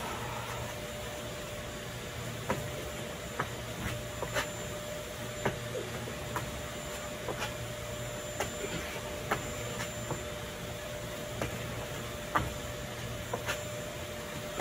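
Hands and feet slapping and landing on brick pavers during burpees: sharp taps about once a second, over a steady low hum.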